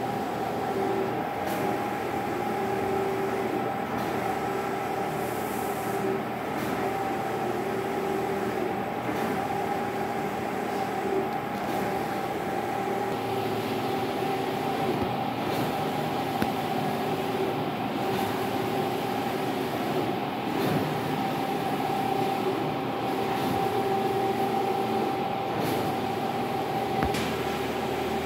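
Rodin 512i wide-format banner printer running a print: a steady machine whir with a constant mid-pitched tone, the print-head carriage sweeping back and forth across the media, and the hiss dipping briefly about every two and a half seconds.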